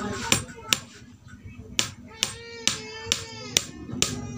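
Hammer blows driving nails into the wooden board of a homemade stool: two strikes, a pause of about a second, then a steady run of six strikes at about two a second.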